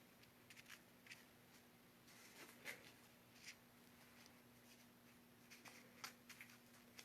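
Near silence: room tone with a faint steady hum and scattered faint soft clicks and rustles.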